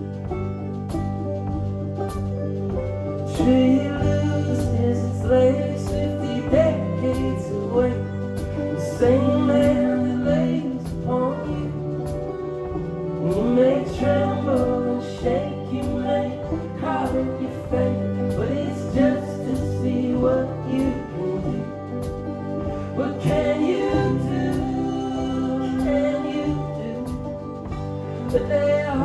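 Indie folk band playing a song live, with a lead vocal singing over sustained bass and instrumental accompaniment.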